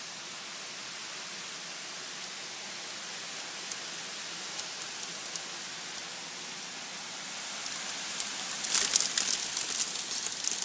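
Hail and rain falling steadily, an even hiss with scattered sharp ticks; about eight seconds in it grows louder, with a dense run of sharp clicking.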